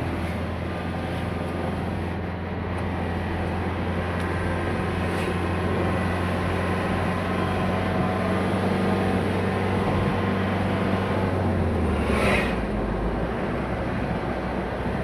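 Steady drone of a vehicle's engine and road noise heard from inside a moving vehicle; about twelve seconds in the engine note drops lower, with a brief rush of noise.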